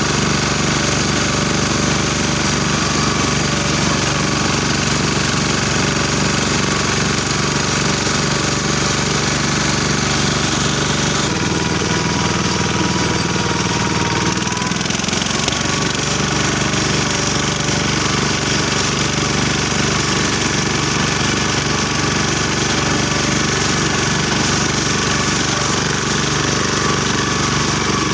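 BCS four-wheel reaper binder running steadily with a loud, rapid mechanical clatter over its engine note. About eleven seconds in the engine note changes for a few seconds, then settles back.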